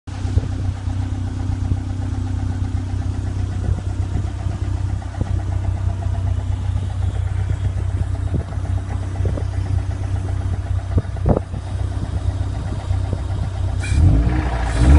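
Toyota MR2 SW20's 3S-GE four-cylinder engine idling with a steady, repeated knock from the bottom end: a suspected rod knock, a big-end bearing failure after oil starvation. Near the end the revs are raised.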